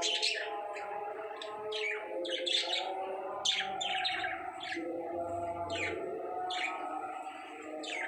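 Pet budgerigars chirping: a string of short, quick chirps that drop in pitch, coming irregularly, sometimes several close together.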